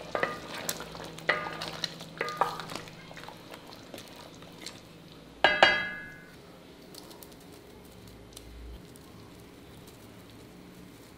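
A spatula stirring thick curry gravy in a large metal pot, knocking and scraping against the sides with short ringing clinks, over a faint sizzle from the gravy. About five and a half seconds in comes one loud clang of the spatula on the pot that rings for under a second; after it only a few faint ticks remain.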